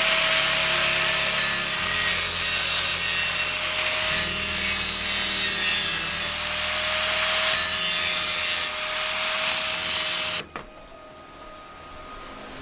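A power tool running steadily with a hissing grind against sheet metal, with a steady whine, then stopping suddenly about ten seconds in.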